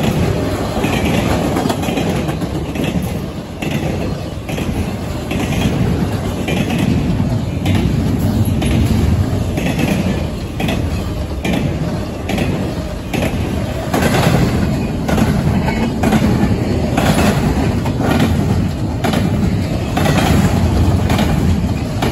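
A CSX intermodal freight train's well cars loaded with containers passing at speed: a steady rumble of steel wheels on rail with a regular clickety-clack as the wheelsets cross rail joints.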